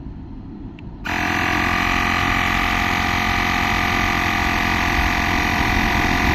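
Xiaomi portable electric air compressor switching on about a second in and running steadily, a loud buzz with several steady high tones, as it pumps up a bicycle tyre toward a set 30 PSI.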